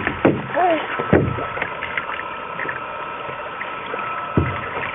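Canoe under way: water swishing and lapping against the hull, with a few knocks on the canoe, two within the first second or so and one near the end.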